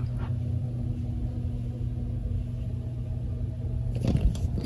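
Steady low rumble and hum of room background noise, then a few knocks and bumps from the camera being handled near the end.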